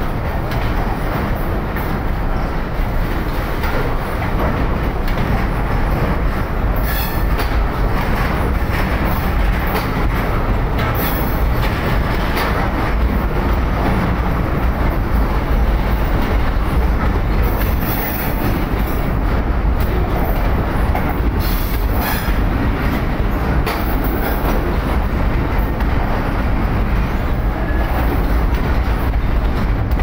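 Container flat wagons of a long freight train rolling past: a steady rumble and clatter of wheels on the rails, with brief sharp high-pitched wheel sounds now and then.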